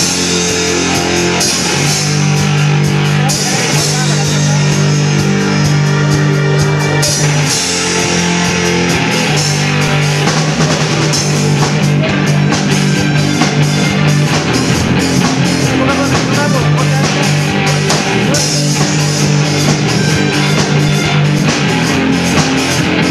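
Live amplified rock band playing an instrumental passage: electric guitar, bass, keyboard and drum kit, with held low notes that change every few seconds under a steady drum beat.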